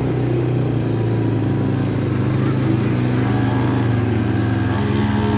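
Road vehicle engine running steadily while under way, its pitch dipping and rising slightly as the engine speed changes.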